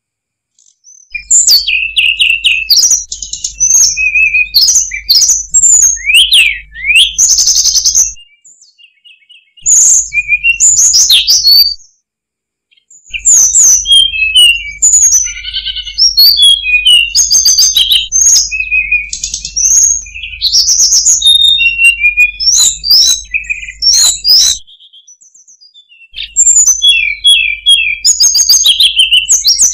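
Hill blue flycatcher (tledekan gunung) singing a loud, rapid, varied song of high chirps, slurred whistles and trills, in long bursts broken by three short pauses.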